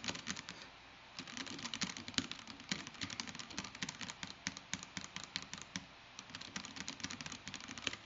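Fast typing on a Baldr 60 glass-case mechanical keyboard with a polycarbonate plate, Alpaca V2 linear switches and PBT keycaps: a quick, uneven run of key clacks with a brief lull about a second in. The sound is muted, similar to a plastic case.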